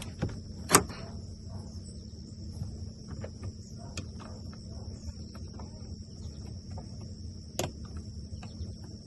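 Steady high-pitched chirring of crickets, broken by a few sharp clicks: one about a second in and a louder one near the end.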